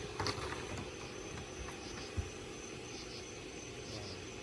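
Steady background hum and hiss, with a few faint clicks near the start and a short low knock about two seconds in.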